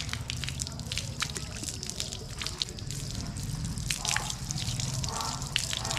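Rinse water dripping and trickling off a just-degreased fixed-gear bicycle onto a concrete floor, as many small, irregular drops.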